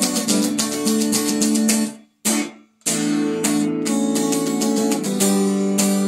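Stratocaster-style electric guitar strummed through an amplifier, playing chords. About two seconds in the strumming stops abruptly for under a second, then the chords resume.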